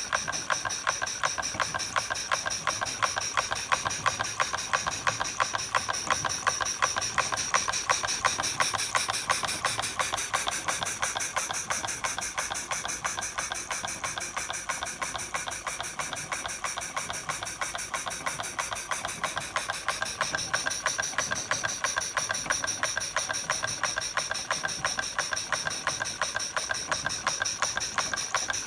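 Stuart No. 9 model steam engine running steadily, with a rapid, even beat of exhaust puffs and clicks and a constant hiss, driving a Rival Grind-O-Mat meat grinder that turns empty through a pulley.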